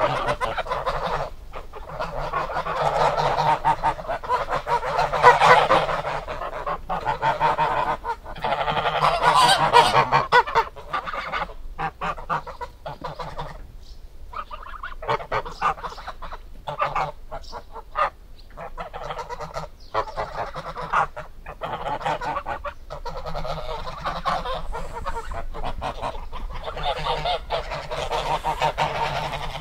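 Geese honking: many calls in quick succession, often overlapping, with a few short lulls.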